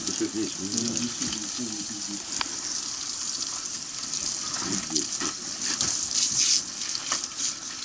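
Water spraying from a firefighter's hose nozzle onto charred wooden ceiling boards and the stove chimney pipe, a steady hiss with spattering and crackle. Muffled voices early on.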